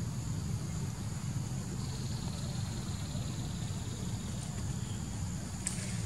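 Outdoor ambience: a steady low rumble with the steady high buzz of insects over it, and one short sharp sound near the end.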